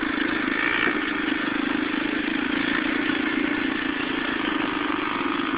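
Small dirt bike engine running steadily as the bike rides along a dirt track, its pitch holding even.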